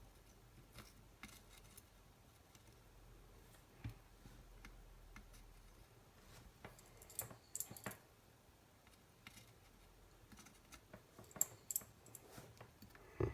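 Faint, scattered small clicks and taps of desoldering work on a circuit board, with a few sharper ticks in the second half.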